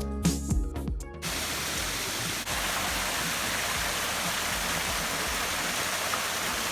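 Background music with a beat stops about a second in, giving way to the steady rush of a waterfall.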